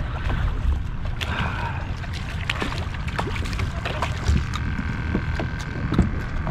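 Wind rumbling steadily on the microphone over water slapping a kayak, with scattered small splashes and knocks as a redfish is handled over the side for release.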